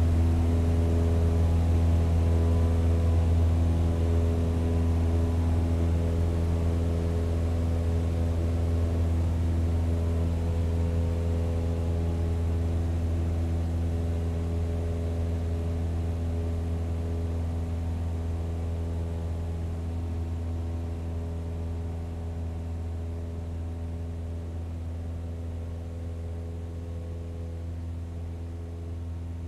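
ATR 72 turboprop's engines and six-blade propellers running with a steady, even-pitched low drone, fading slowly as the aircraft moves away along the runway.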